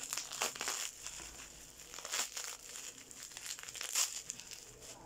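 Plastic bubble wrap crinkling and rustling as it is pulled open by hand, in irregular crackles, the loudest about four seconds in.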